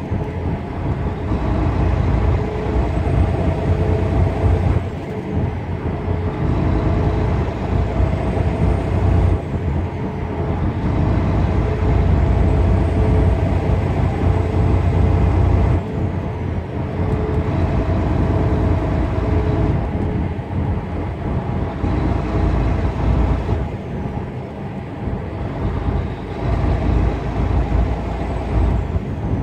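Tractor-trailer truck driving along a road: a steady engine drone and road noise with a strong low hum and a few held tones, dipping briefly every few seconds.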